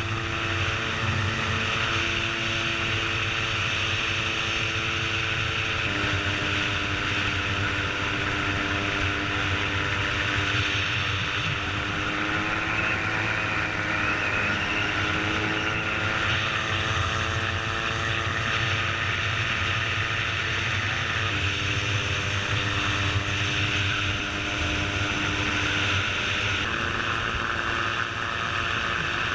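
Gyroplane engine and propeller running steadily in flight, recorded on board. The engine's pitch dips and climbs back about halfway through.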